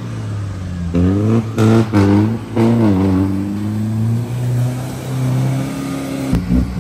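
Off-road 4x4's engine revving in several short bursts, then held at a steady pitch; the note changes and turns rougher near the end.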